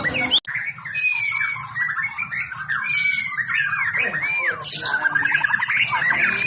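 White-rumped shama singing a fast, varied song of clear whistles, gliding notes and rapid trills. The song breaks off for an instant about half a second in.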